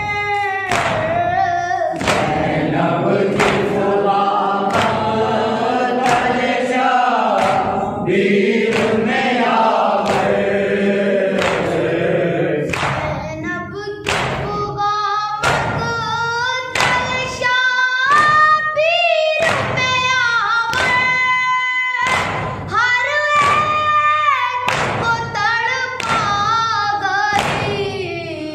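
A boy's voice chanting an Urdu noha (Shia lament) into a microphone, with other voices joining in. Steady thumps of hands beating on chests (matam) keep time throughout.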